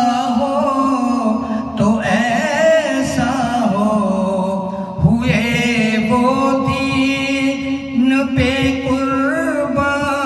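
A man singing a Muharram manqabat solo: a devotional chant with long held notes and wavering, ornamented runs, sung close into two handheld microphones.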